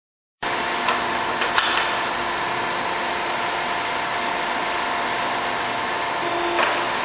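Pipe-bending machine's motor running steadily with a constant whine, plus a few sharp clicks of metal; the sound begins abruptly just under half a second in.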